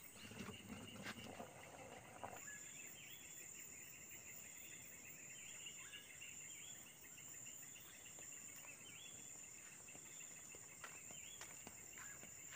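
Faint insect chorus, crickets among them: a steady high-pitched trill with short chirps repeating every second or so. There is some light rustling and a few faint clicks in the first two seconds.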